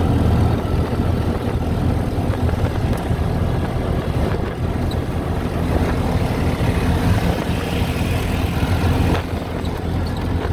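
Auto-rickshaw (bajaji) engine running steadily under way, heard from inside the open passenger cab, with a continuous low hum and rushing noise.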